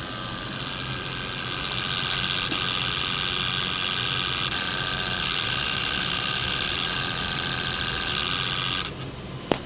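Yaskawa 400 W AC servo motors running a simple test program: a steady high whine made of several pitches, getting louder about two seconds in and cutting off suddenly near the end, followed by a single short click.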